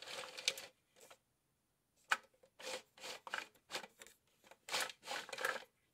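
Plastic parts of a 3D-printed screw sorter rubbing and clicking as it is handled and its ribbed drum turned: a short scrape at the start, then after a pause a string of about eight short scrapes and clicks.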